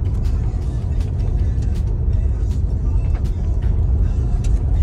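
Road and engine noise inside a moving SUV's cabin: a steady low rumble with scattered light ticks.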